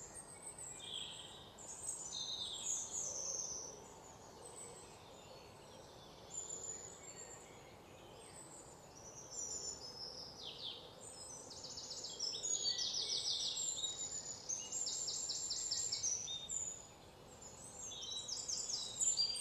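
Birds chirping and calling with short high notes and quick trills, one after another, over a faint steady outdoor hiss.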